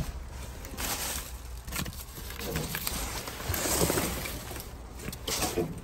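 Plastic wrapping and cardboard boxes rustling and crinkling as they are handled and shifted, with scattered light knocks.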